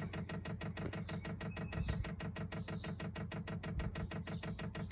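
Chinese diesel heater's fuel dosing pump ticking rapidly and evenly, about ten clicks a second, while priming the fuel line. No fuel has reached the heater yet.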